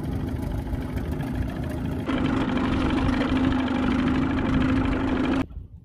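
A small fishing boat's motor running steadily with a low drone and a steady hum. It gets louder about two seconds in and cuts off suddenly near the end.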